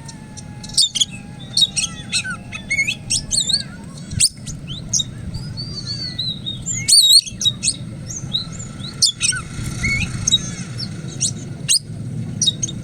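Oriental magpie-robin (kacer) singing a varied song of whistled notes, chirps, pitch glides and rapid trills in quick phrases with short breaks between them, over a low steady background hum.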